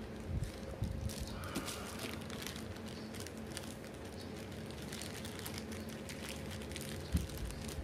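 A drink sipped through a straw and the light crinkling of its thin plastic bag, faint small clicks, over a steady low hum.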